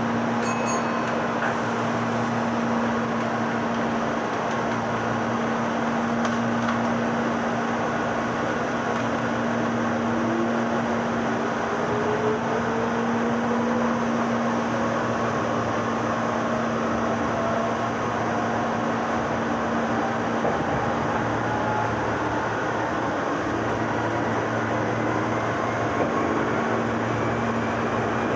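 Running noise of a Meitetsu 6000 series resistance-controlled electric train: steady rail noise with a constant hum, and a faint whine rising slowly in pitch over about ten seconds from about a third of the way in, as the train gathers speed.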